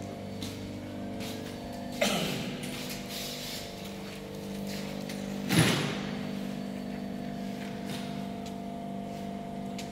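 Steady machinery hum made of several steady low tones, with two loud bangs about two seconds and five and a half seconds in, each ringing briefly in the big room.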